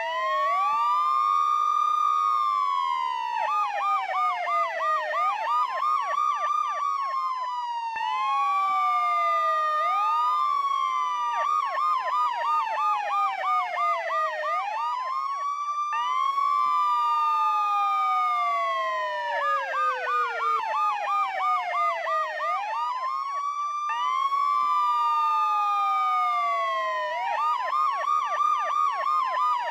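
Several police car sirens sounding together: slow rising-and-falling wails overlap with runs of rapid yelping sweeps. The mix repeats about every eight seconds.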